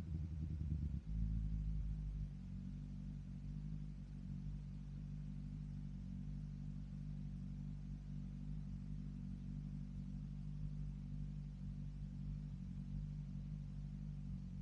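BMW S1000RR's inline-four engine through an M4 aftermarket exhaust: the revs drop about a second in, then it idles steadily.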